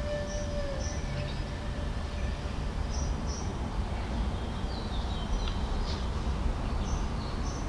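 Outdoor background: a steady low rumble with faint, short high bird chirps now and then. A held tone at the very start slides down and stops under a second in.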